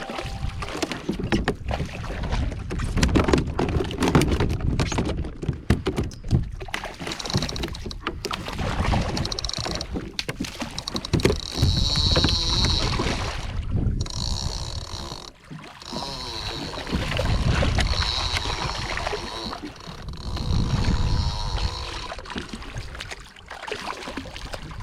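Water sloshing and splashing around a fishing kayak, with wind buffeting the microphone and repeated knocks and clicks of rod and gear being handled while two hooked mahi are fought. An intermittent high whir comes and goes through the middle.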